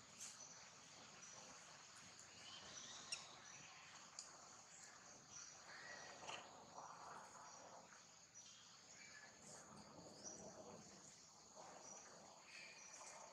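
Faint outdoor ambience: a steady high-pitched insect chirring, with scattered small rustles and ticks.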